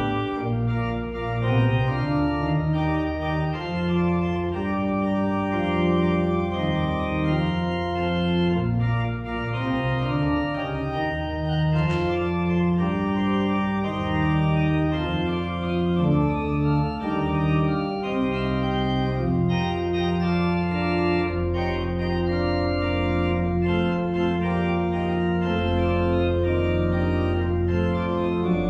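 Church organ playing a prelude of sustained chords, the notes shifting every second or so over held low bass notes.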